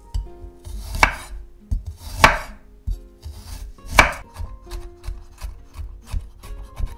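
A chef's knife cuts a garlic clove on a wooden cutting board. Three firm slicing cuts knock the board, then quicker, lighter chopping begins about halfway through as the garlic is minced.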